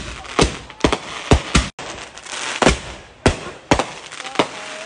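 Consumer fireworks going off: an irregular string of sharp bangs, about ten in under five seconds, with crackling hiss between them.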